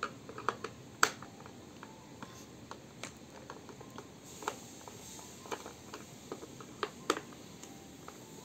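Irregular small clicks and ticks of a screwdriver turning out the screws in a juicer's plastic base, with the loosened screws being handled; the sharpest clicks come about a second in and about seven seconds in.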